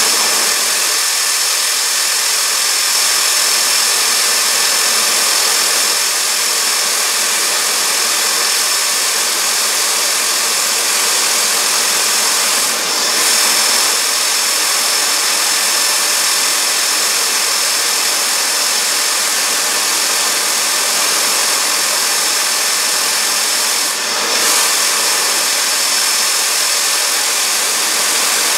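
Fairchild J44 turbojet running steadily on a test stand: a loud rushing jet noise with a high, steady whine on top.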